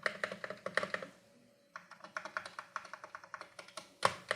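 Fast typing on the AKKO MonsGeek FUN60 keyboard's factory-lubricated linear magnetic switches: quiet, even keystrokes about eight to ten a second, with a short pause just after the first second and a heavier keystroke near the end.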